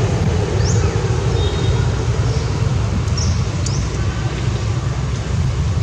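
Steady low outdoor rumble with a few short, high rising chirps, about half a second, three seconds and three and a half seconds in.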